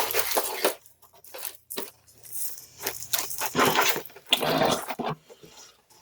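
Cardboard box and plastic-wrapped card bundles being handled: a series of rustles, scrapes and crinkles, the loudest right at the start and another run from about three to five seconds in.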